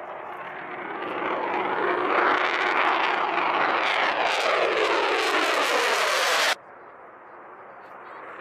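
F-22 Raptor fighter jet's twin F119 turbofan engines climbing out after takeoff and passing overhead: the jet noise grows loud, with falling sweeps in the noise as it goes over. About six and a half seconds in it cuts off suddenly, and the quieter, building noise of the next Raptor taking off follows.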